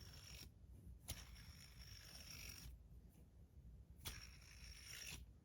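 Near silence, with faint handling noise from a fidget spinner held in the hand: a few soft taps and a light rustle.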